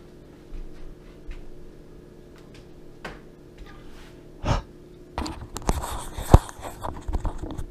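Camera handled right at the microphone: fingers rubbing and bumping against the camera body, with one sharp knock, starting about five seconds in. Before it, a few faint clicks and a short breath close to the microphone.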